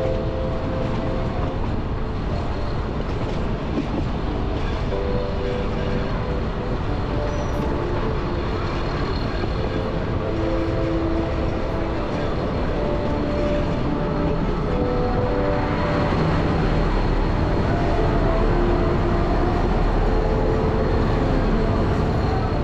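Nilgiri Mountain Railway train running, a steady rumble of wheels on track heard from aboard the carriage, growing slightly louder about two-thirds of the way in.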